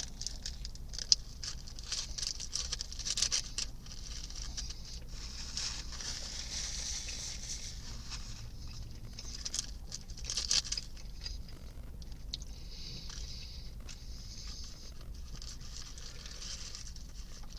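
A person chewing a crunchy fried chicken sandwich close to the microphone: irregular small crunches and crackles, with stretches of soft rustling, over a low steady hum.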